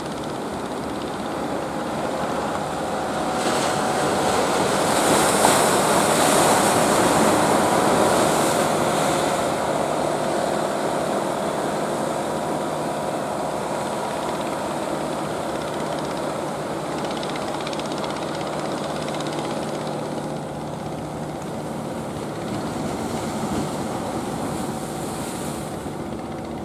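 Engines of motorised wooden fishing boats running as they pass through the channel, with the rush of water from their wakes and the surf. The sound swells from about three seconds in and eases after about nine seconds, leaving a steady engine hum.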